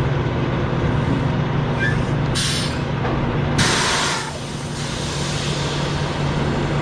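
Semi truck's diesel engine running steadily, with a short hiss of air about two and a half seconds in and then a louder, sharp burst of air-brake hiss that fades within about a second.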